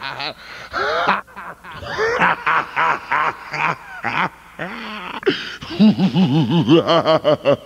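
A man laughing loudly, ending in a run of quick, rapid 'ha-ha-ha' pulses.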